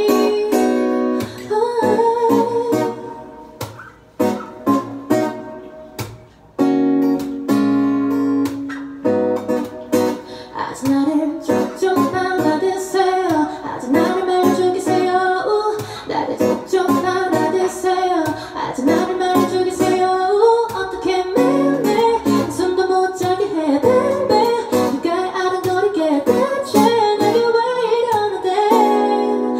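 A woman singing into a microphone, accompanied by a strummed acoustic guitar. The music thins out and falls quiet for a few seconds starting about two seconds in. Guitar strums come back in about six and a half seconds in, and the voice returns fully a little later.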